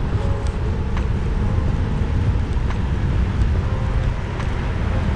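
Wind rushing over the microphone and bicycle tyres rolling on a paved road while riding at speed: a steady low rumble with a few faint ticks.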